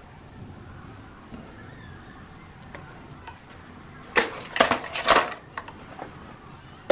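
Gamo Swarm Fusion 10X Gen 2 break-barrel air rifle being re-cocked after a shot: about four seconds in, a quick run of four sharp mechanical clacks within about a second, then one more sharp click at the very end.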